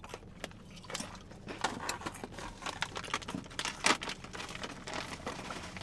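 Irregular small crackles and crunches of hot tortilla chips being chewed and of a crinkly foil chip bag being handled, with a few sharper clicks.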